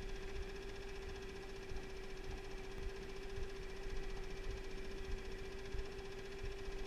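Small fishing boat's motor running steadily at trolling speed: a constant hum over a low, uneven rumble.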